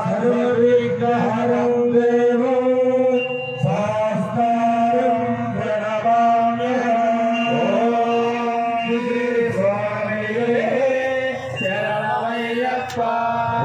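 Men chanting an Ayyappa devotional bhajan into microphones over a PA, with steady held tones sounding underneath the voices.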